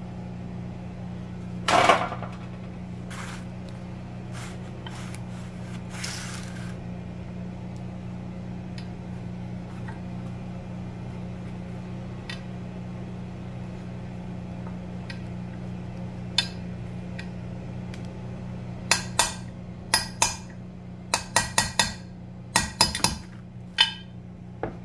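Sharp metal taps on a socket driving a bearing into a heated aluminium engine case half, the bearing for the clutch lever shaft of a Honda TRX250R. There is a louder clattering knock about two seconds in and a few scattered taps, then a quick run of about a dozen taps near the end, all over a steady low hum.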